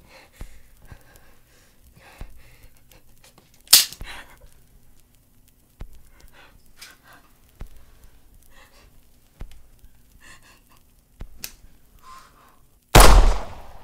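Shaky breathing and gasps, with a short sharp crack about four seconds in. Near the end comes a single very loud revolver shot that dies away over most of a second.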